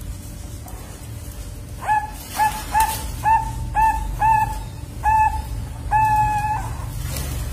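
Young zebra dove, about two months old, practising its song: a run of about eight short, clear cooing notes, the last one drawn out.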